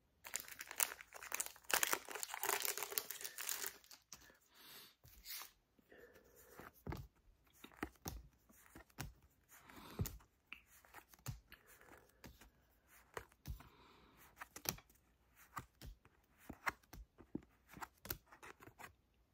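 Foil Pokémon booster pack torn open with a crinkling rip over the first few seconds. Then a scattering of short clicks and slaps as the trading cards are flicked through one by one and tossed onto the playmat.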